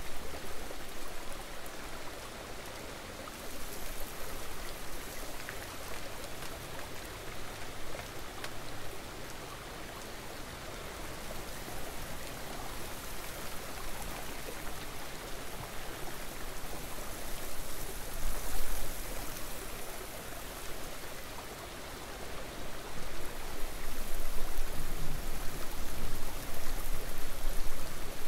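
Steady rushing of a nearby river's running water, growing louder with a low rumble in the last few seconds.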